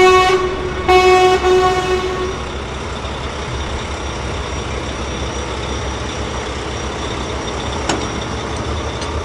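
Truck horn honking in a few short blasts during the first two seconds, then the truck running with a steady low rumble.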